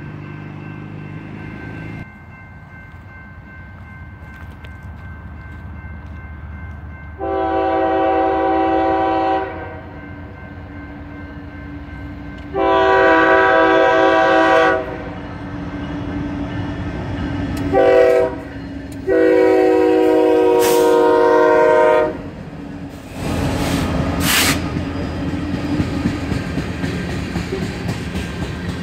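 Freight locomotive horn sounding the grade-crossing signal: two long blasts, a short one, then a long one. Then the train rumbles through the crossing, with its wheels clattering over the rails.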